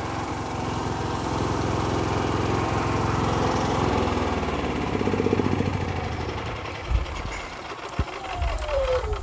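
Harbor Freight Predator 9500 inverter generator's 459cc engine running steadily, its note easing down after about six seconds as the loads come off. Two sharp knocks follow, then a falling whine near the end.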